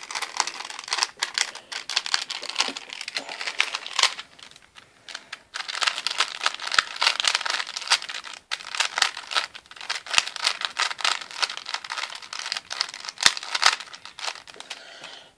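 A plastic Rubik's Cube having its layers turned in quick succession to undo the superflip pattern: a dense run of clicking and scraping, with a short pause about four seconds in.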